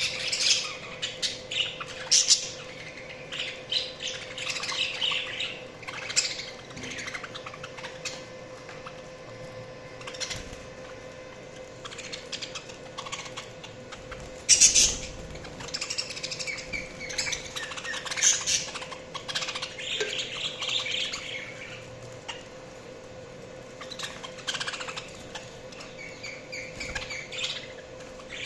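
Budgerigars chirping and singing in busy, irregular bursts, with a few louder sharp calls and short quieter stretches between. A steady faint hum runs underneath.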